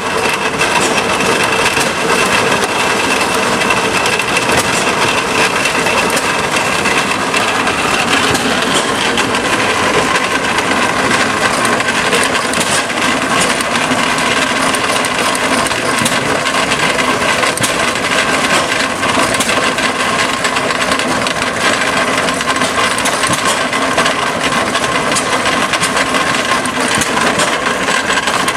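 Antique belt-driven corn-processing machinery running: a loud, steady grinding noise of corn going through the machine, with a faint steady whine.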